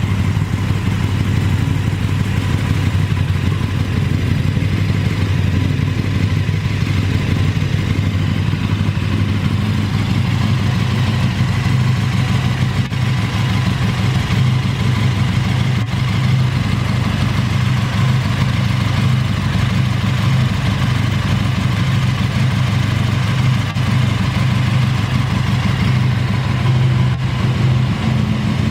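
KTM 1290 Super Duke R's 1301 cc 75° V-twin idling steadily through an Akrapovic exhaust.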